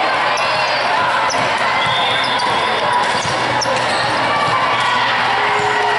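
Busy volleyball gym din: many overlapping voices of players and spectators calling and chattering, with scattered thumps of volleyballs being hit and bouncing on the hardwood, echoing in a large hall.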